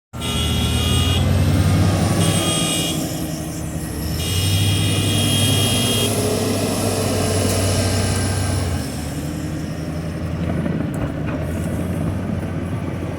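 Heavy vehicle's engine working hard, swelling twice in long pushes and then settling to a lower run near the end, as the vehicle strains while stuck in rain-soaked ground.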